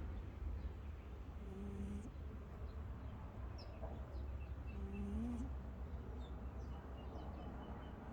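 A sleeping domestic cat snoring: two short, pitched snores about three and a half seconds apart, the second rising slightly at its end. Faint bird chirps sound high above them.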